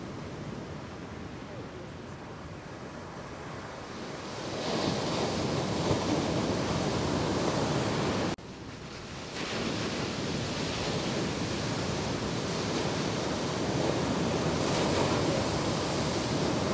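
Ocean waves breaking in the shorebreak, with a steady rushing wash of whitewater that grows louder about four seconds in. It cuts out for about a second just past halfway, then comes back as more surf breaks.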